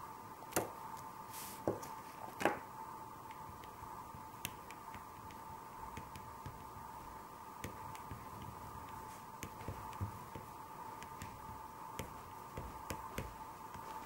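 Oil pastel and fingertips rubbing and smudging on paper, with scattered soft taps and clicks, a few louder ones in the first three seconds, over a faint steady whine.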